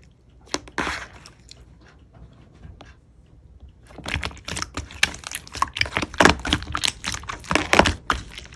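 Slime being squished and pressed by hand, making a run of small clicks and pops. The clicks are sparse at first and become dense and louder from about four seconds in.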